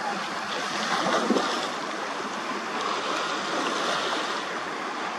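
Steady rushing noise of choppy sea water and wind, with a slight swell in loudness about a second in.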